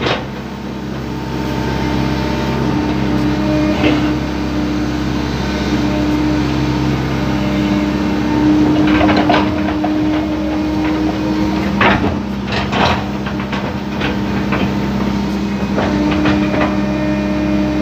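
Excavator's diesel engine running with a steady hydraulic hum, heard from inside the cab as the boom and bucket work soil, with a few short knocks along the way.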